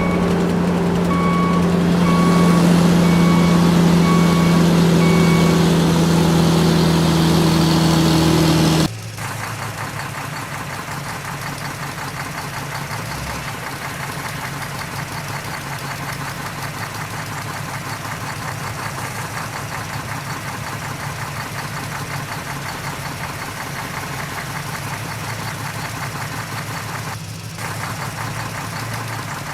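A sand lorry's diesel engine running loud as its reversing alarm beeps about once a second, the beeping stopping after about six seconds. About nine seconds in, the sound cuts abruptly to a quieter heavy diesel engine idling steadily.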